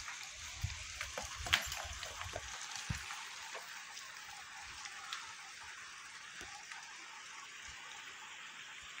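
Steady rushing of a mountain stream, with a few low thuds and sharp clicks in the first three seconds.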